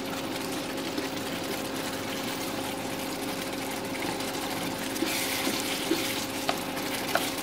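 Tomato-based chicken gravy simmering in a nonstick pan while a spatula stirs it, with a hiss swelling about five seconds in and a few light taps of the spatula against the pan near the end. A steady low hum runs underneath.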